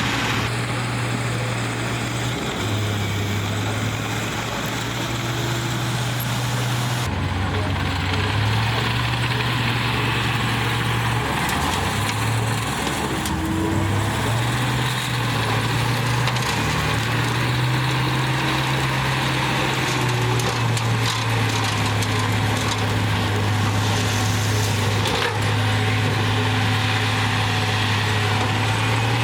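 Heavy diesel engine of earthmoving machinery running under load, a steady low drone whose pitch steps up and down several times as the load changes.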